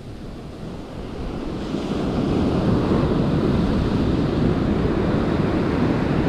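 Ocean surf breaking and washing up a sandy beach, getting louder about two seconds in as a wave comes in, with wind buffeting the microphone.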